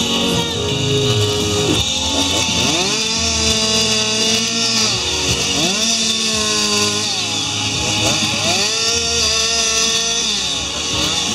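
Two-stroke chainsaw running at high revs while carving wood, its pitch sagging under load and climbing back about every three seconds.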